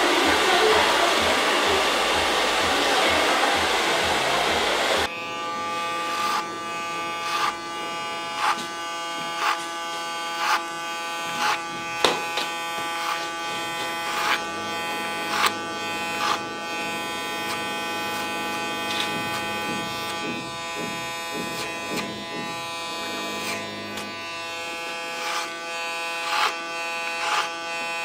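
A loud, even rushing noise for about the first five seconds, then an electric hair clipper running steadily as it is worked up the nape over a comb, with a short tick about once a second.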